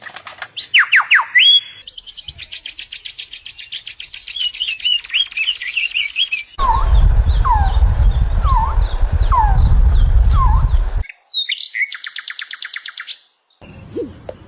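A string of different bird songs and calls, cut abruptly from one to the next. First come falling whistles, then a fast trilling song, then repeated short down-slurred calls over a low rumble. About eleven seconds in there is a rapid, high, buzzy pulsed call, and near the end lower, repeated calls.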